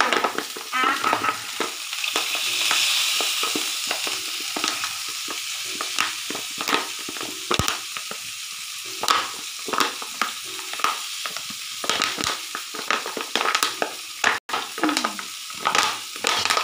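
Masala-marinated fish pieces shallow-frying in hot oil with raw rice grains in the pan: a steady sizzle with frequent sharp pops and crackles.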